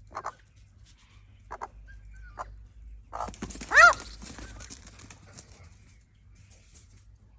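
An animal's call: one loud, pitched cry about four seconds in, after a few short, softer sounds.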